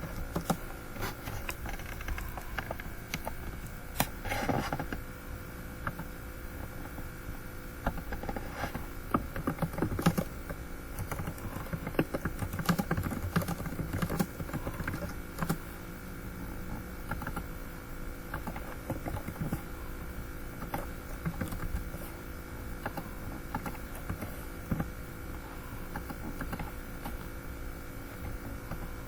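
Typing on a computer keyboard: irregular key clicks, in clusters, over a steady low hum.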